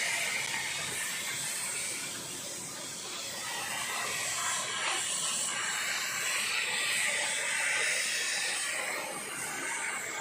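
Steady hissing noise of a horizontal hydraulic baling press running, swelling and easing slowly with no distinct knocks.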